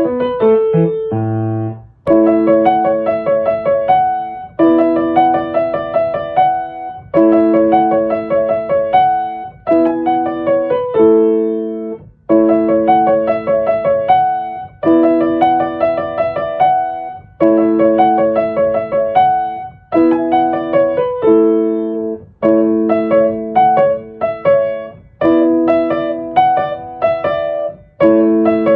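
Background music: a piano playing a repeating pattern of struck chords, each held and fading before the next.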